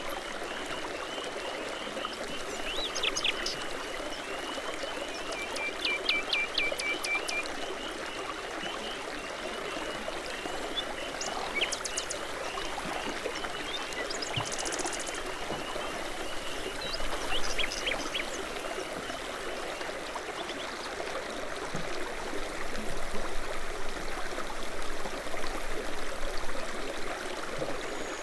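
Babbling brook running steadily, with songbirds singing over it in short chirps and trills.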